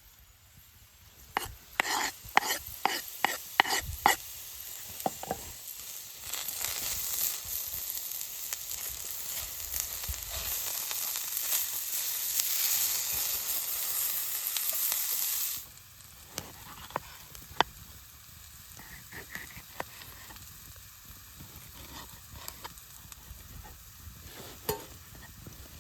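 Food frying in a carbon steel pan over a small fire, stirred with a utensil. A quick run of sharp clicks and scrapes against the pan comes first, then a loud sizzle that swells and cuts off suddenly about two-thirds through, leaving a quieter sizzle with occasional clicks.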